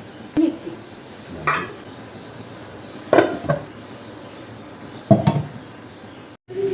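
Dishes and utensils clattering and knocking against each other in four separate bouts, as if being handled or put away.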